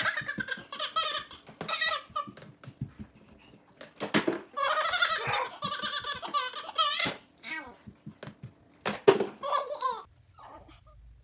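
Toddler laughing hard, belly laughs in several bursts with short breaks between, falling quiet near the end.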